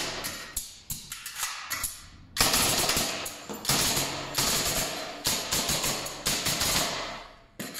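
Hitachi NR83A pneumatic framing nailer firing nails into a wooden post: a quick string of sharp shots, then from about two and a half seconds a long, fast volley of shots with hissing air that stops near the end. The nailer is driving nails properly after a repair.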